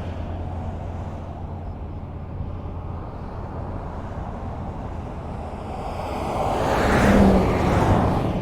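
Highway traffic: a steady rumble of tyres on the road, then a vehicle passing close that swells to a peak about seven seconds in and eases off near the end.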